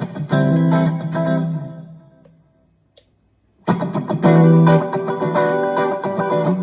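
Ibanez AZES40 electric guitar played through a Cuvave Cube Baby multi-effects unit, lightly overdriven. The notes ring out and die away to silence a little past two seconds in, a short click follows, and the playing starts again just after halfway.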